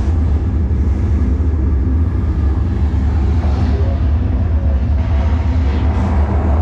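Steady deep rumbling drone with a strong low hum that holds unchanged throughout.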